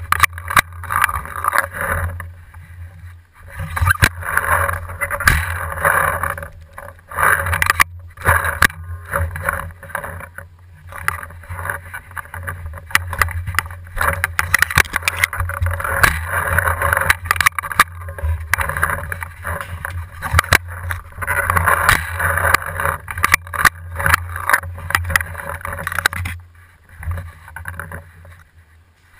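Rustling and handling noise on a marker-mounted camera as the player shifts about, with a steady low hum, waves of scraping noise that come and go every few seconds, and scattered clicks and knocks.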